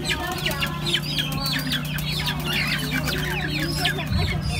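A cage full of black chickens calling: many short overlapping clucks and chirps, several a second, over a steady low hum.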